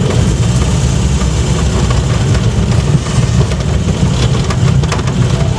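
Rail Land Rover's engine running steadily as it travels along narrow-gauge track, a loud low rumble heard from inside its cab.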